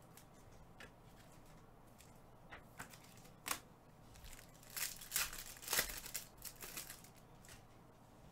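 Trading-card packs and cards being handled: scattered short crinkles and rustles of pack wrappers, busiest about halfway through.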